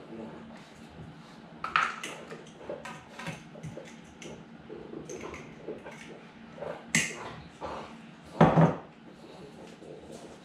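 Clinks and knocks of a glass jar and utensils against a bowl and counter as sugar is measured out. There is a sharp clink about two seconds in, another about seven seconds in, and a heavier thump, the loudest sound, about eight and a half seconds in.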